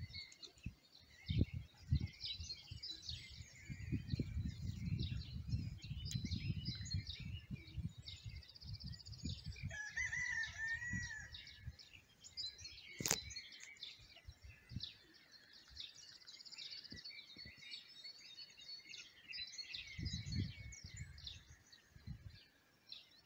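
Small birds chirping and singing, with a rooster crowing once about ten seconds in. Low rumbling thumps come and go, loudest in the first half and again near the end, and there is a single sharp click a little after the crow.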